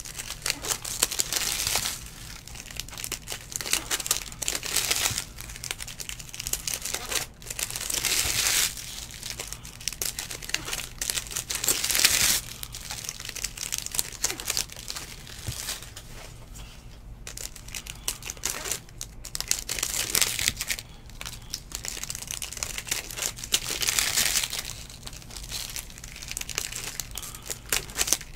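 Trading-card pack wrappers crinkling and being torn open by hand, in bursts every few seconds, with cards shuffled in between.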